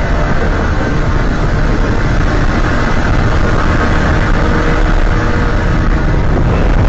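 Loud, steady, dense rumble of a giant-monster sound effect for Legendary Mega Godzilla, heavy in the low end and engine-like, with no distinct roars or impacts.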